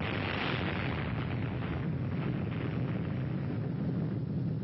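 Long rolling rumble of an atomic bomb explosion on an old film soundtrack: a steady rushing roar, heaviest in the low end, its upper hiss thinning out near the end.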